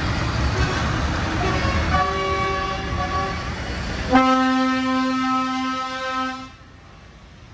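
A lorry's engine rumbling as it drives past, then a long, steady horn blast about four seconds in that lasts about two seconds and cuts off.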